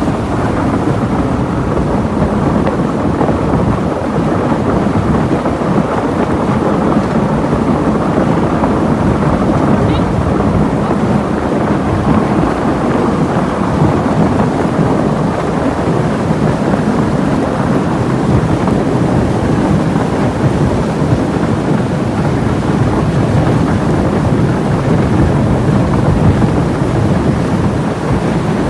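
Boat hull pushing through broken ice: a steady, dense crunching and grinding of ice against the hull, low and loud.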